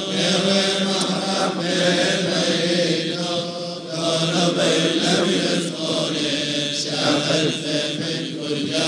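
Syriac Orthodox funeral chant: several voices chanting a liturgical hymn together over a steady held low note.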